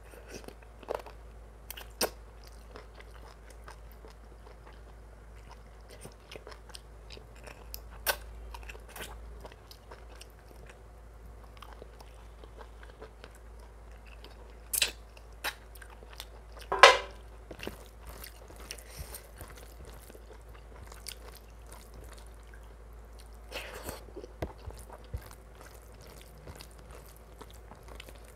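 Close-miked chewing and biting of mutton curry and rice, with scattered sharp mouth clicks and crunches, the loudest a little past the middle.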